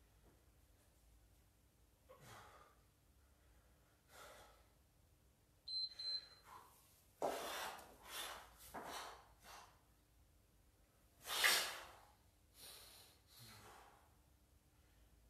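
A person breathing out hard in rhythm with kettlebell double half-snatch reps, about one breath every two seconds. About six seconds in a short high electronic beep sounds twice, and the breaths that follow are louder and heavier.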